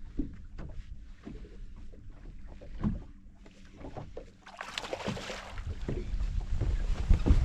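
Fishing boat on the water: a low rumble with scattered knocks and a faint steady hum, then a rushing hiss from about halfway through that grows louder toward the end.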